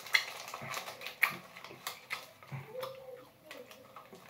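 Plastic candy bag crinkling with a few sharp crackles as it is handled, along with soft chewing and mouth sounds.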